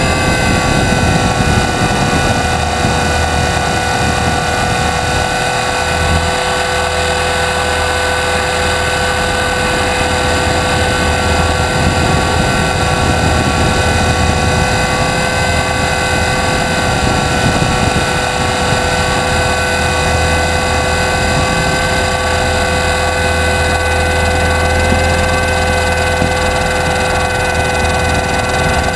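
A 500-size RC helicopter in flight, heard through a camera mounted on the helicopter: its drive and rotor run at a steady speed, giving a constant whine of several held tones over a low rumble.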